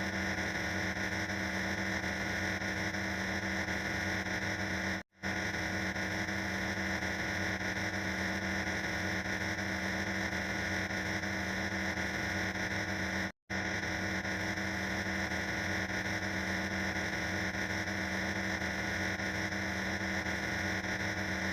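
Steady, harsh static-like electronic noise with a few fixed tones in it. It cuts out for a split second twice, about five and thirteen seconds in.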